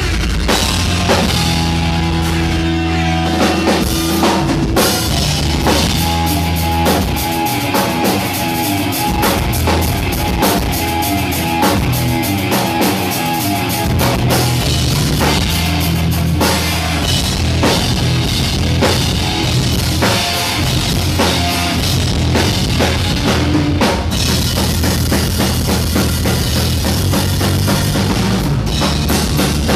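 Live punk rock band playing loudly, with the drum kit prominent and driving the beat under electric guitar.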